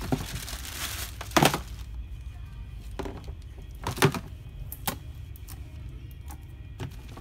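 Plastic bag crinkling over the first two seconds, then a few sharp clicks and knocks as plastic car parts and wiring are handled, over background music.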